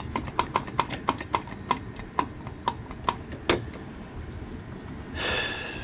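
Brake-bleeding vacuum pump being worked, giving sharp clicks about four a second that slow and stop after a few seconds, followed near the end by a short hiss. The pump is failing to draw the old brake fluid out of the master cylinder reservoir.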